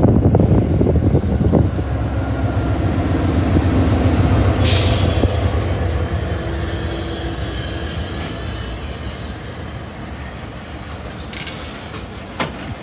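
Union Pacific freight train passing: heavy diesel locomotive rumble at first, then hopper cars rolling by with steel wheels squealing and a sharp screech about five seconds in. The sound fades slowly as the train moves on.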